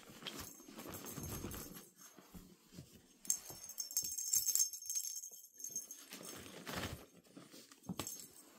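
Young puppies scrambling and scuffling on blankets and a fabric play tunnel, with bursts of rustling and a few light knocks. About three seconds in, a hand-held toy gives a high jingle for about a second and a half, the loudest sound here.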